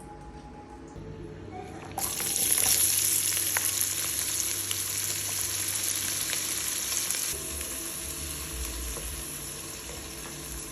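Food sizzling in hot oil in a pot. The loud frying hiss starts suddenly about two seconds in, as something goes into the oil, and eases a little later.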